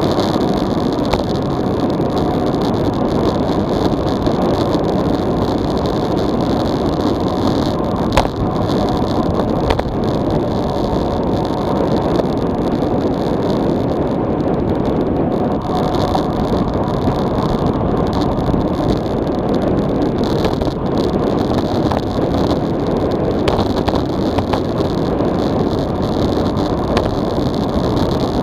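Steady rushing wind noise and tyre roar on an SJCAM SJ4000 action camera's microphone, mounted on a road bike descending at about 45 to 55 km/h. A single sharp click about eight seconds in.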